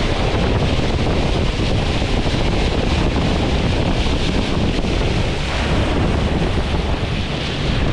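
Steady wind buffeting the microphone, with the rush of sea water.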